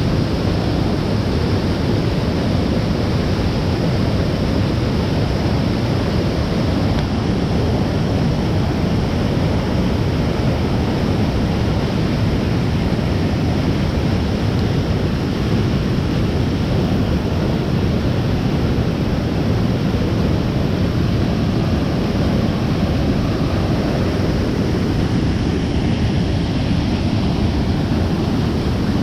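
Mountain waterfall rushing loudly and steadily, full after heavy rain.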